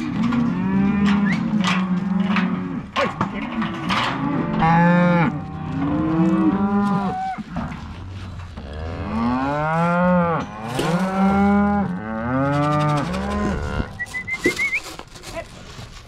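A herd of cattle mooing and bawling, many long calls overlapping and rising and falling, often several animals at once, with a few sharp knocks in between.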